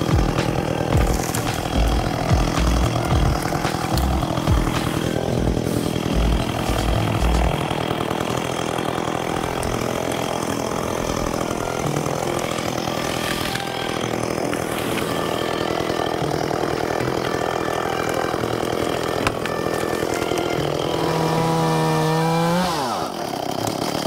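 Chainsaw running and cutting through tree limbs, held at high revs. In the first seven seconds or so there are low thuds, and near the end the engine revs briefly higher, then the pitch falls steeply as the throttle is let off.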